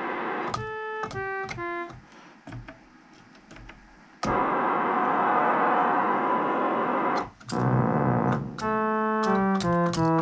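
ARP Solina String Ensemble played in short falling runs of notes, with faint clicks during a quiet stretch and, in the middle, about three seconds of harsh noisy sound with no clear pitch. Some keys are breaking up or dropping out, a fault traced to the M087B1 master oscillator chip.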